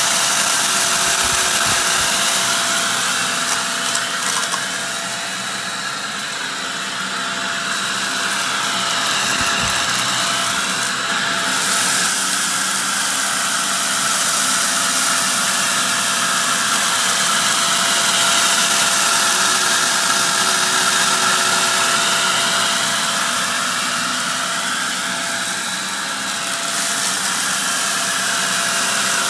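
Shark vacuum cleaner running steadily, its motor whine and airflow rising and falling in slow sweeps every few seconds as it is pushed back and forth, sucking up fine and crunchy dirt.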